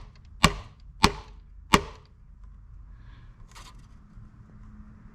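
Microfiber-wrapped hammer tapping metal bridge-post inserts into the top of a Gretsch G2657T Streamliner Center Block guitar: three sharp knocks about half a second apart in the first two seconds, each with a short ring.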